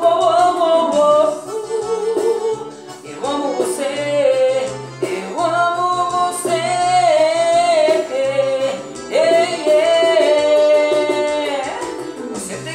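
A romantic Portuguese-language song: a vocal line of long, held, wavering notes over a steady bass and plucked guitar accompaniment.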